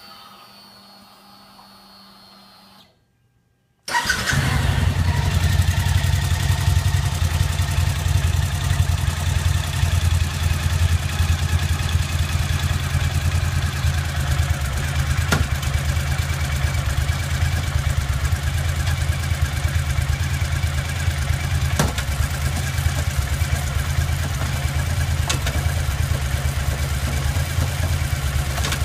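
Suzuki V-Strom motorcycle's V-twin engine running at idle, starting abruptly about four seconds in after a few quiet seconds. Three short clicks come through it as the gear lever is shifted up from neutral through first, second and third.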